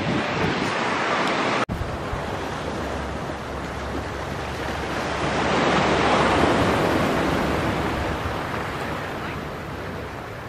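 Wind buffeting the microphone outdoors, then a broad rushing noise that swells to a peak mid-way and slowly fades, with a brief dropout a couple of seconds in.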